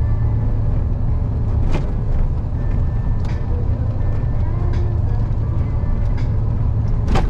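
KamAZ 4308 truck's diesel engine running steadily under way, a continuous low drone. A few sharp clicks or knocks break in, the loudest near the end.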